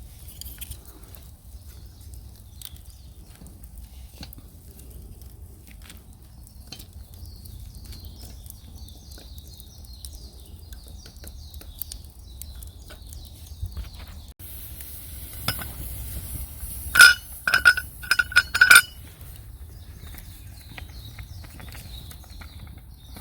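Metal cookware and utensils clinking: a quick cluster of about five sharp clinks, each with a short ring, a little past the middle, over a low steady background.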